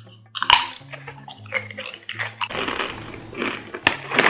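Biting into and chewing a crunchy Maarud Superchips paprika potato chip: a sharp crunch about half a second in, then crisp crunching chews. In the second half the foil chip bag rustles as a hand goes into it.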